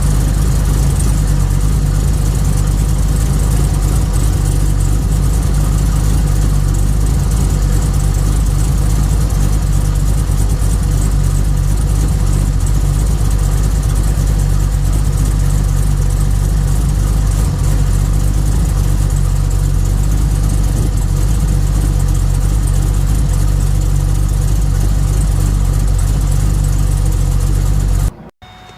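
Pontiac G8 GT's 6.0-litre L76 V8 idling steadily, a deep even rumble that cuts off suddenly near the end.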